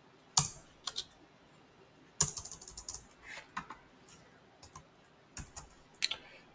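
Computer keyboard typing: irregular single key clacks, with a quick flurry of keystrokes about two seconds in and another near the end.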